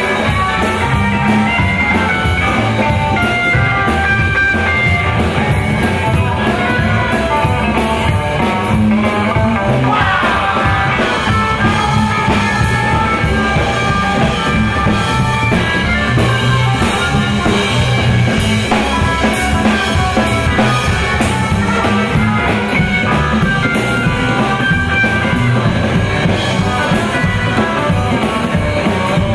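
A live rockabilly trio playing: electric guitar, upright double bass and drum kit together in a steady rock-and-roll groove.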